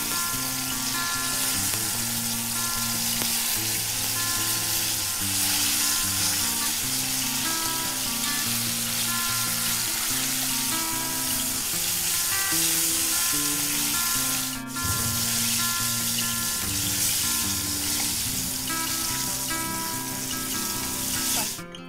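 Breaded chicken drumsticks deep-frying in hot oil in a wok, a steady dense sizzle during the second fry of double-fried chicken. A soft acoustic guitar tune plays underneath.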